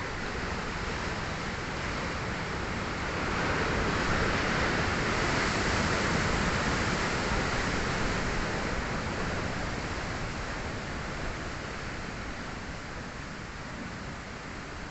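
Sea surf breaking against rocks: a steady rush of water that swells over a few seconds and then slowly eases off.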